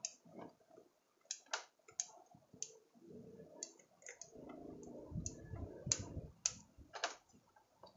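Bonsai pruning scissors snipping twigs off a water jasmine (anting putri) bonsai: about a dozen sharp, irregularly spaced clicks. Between them, leaves and branches rustle as they are handled.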